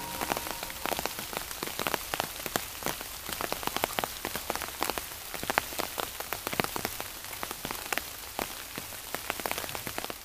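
Rain pattering on leaves: a steady hiss with dense, irregular drops ticking.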